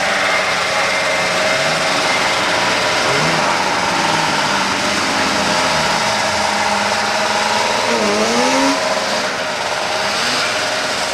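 Several two-stroke snowmobile engines running at once, revs rising and falling. One drops sharply and climbs back about eight seconds in.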